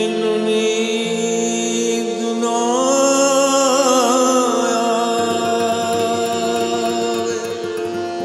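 A man singing a Punjabi song in a slow, wavering, ornamented line over a steady drone and guitar. The voice swells in about two and a half seconds in and fades out near the end.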